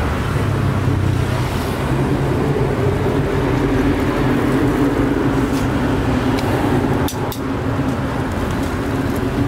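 Street traffic, with a motor vehicle engine running steadily, and a few sharp clicks about seven seconds in.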